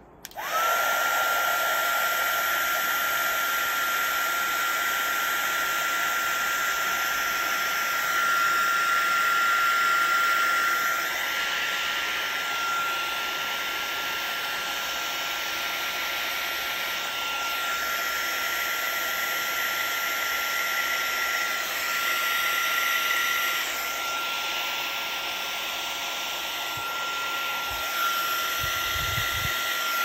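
Wagner HT400 heat gun switched on just after the start, then running steadily: fan rush with a thin high whine. Its level swells and dips slightly as it is moved about, blowing over wet epoxy resin to spread white resin into wave lacing.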